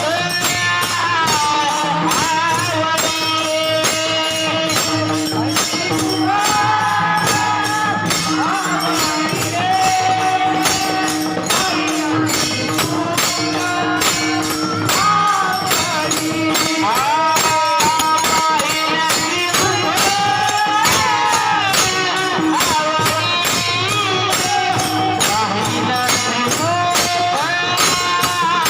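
Devotional kirtan music: a high voice holding and bending long notes over a fast, steady beat of jingling metallic percussion and a droning accompaniment.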